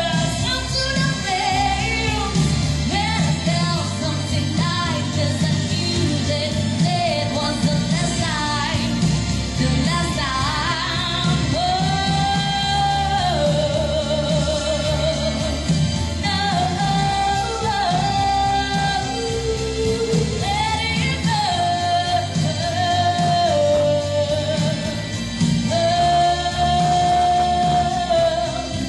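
A woman singing a pop song through a microphone and PA, holding long notes over an instrumental backing.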